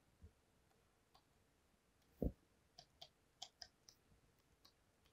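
Faint, irregular clicks and taps of a stylus on a pen tablet while a circuit diagram is being drawn, with one louder dull thump a little over two seconds in.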